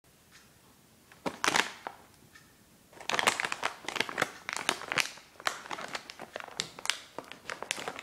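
Dog-treat wrapper crinkling and crackling as it is handled: a short burst about a second and a half in, then dense crinkling from about three seconds on.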